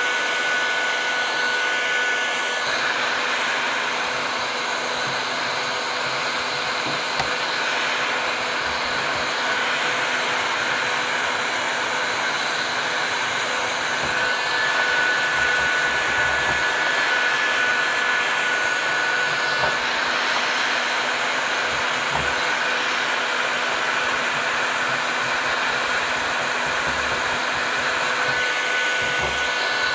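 Bosch heat gun running steadily, a constant rush of blown air with a faint steady motor hum.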